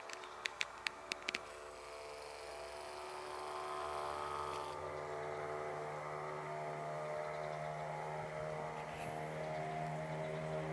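A few sharp clicks, then a motor's steady drone that grows louder over the first few seconds and holds.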